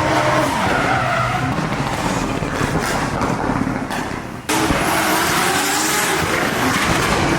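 Drift cars' engines revving with tyres squealing as they slide. The sound jumps abruptly about four and a half seconds in, as at a cut, to more of the same.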